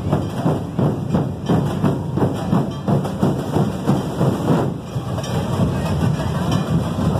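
A large group of festival street drums played with sticks, beating a loud, driving rhythm of about two strong beats a second, with crowd noise underneath.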